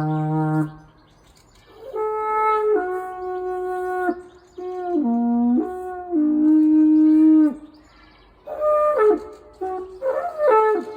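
Carnyx, the Iron Age Celtic trumpet, being played: a held low note stops just after the start, and after a brief pause comes a series of long held notes stepping between a few pitches. Near the end it breaks into a run of quick short notes that slide down in pitch.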